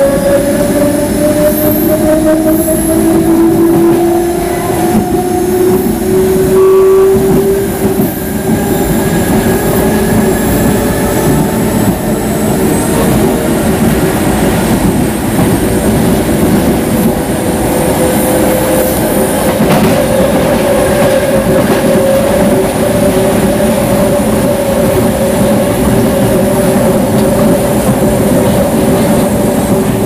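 Traction motors of a CPTM Série 1700 electric multiple unit whining over the train's running rumble. The whine rises in pitch for the first several seconds as the train speeds up, then holds a nearly steady pitch.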